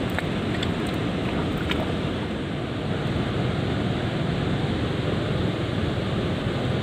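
Steady rushing noise of river water and wind on the microphone, with a few faint clicks in the first two seconds.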